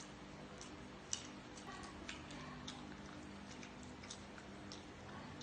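Faint eating sounds: irregular soft clicks and smacks of chewing, with one slightly louder click about a second in.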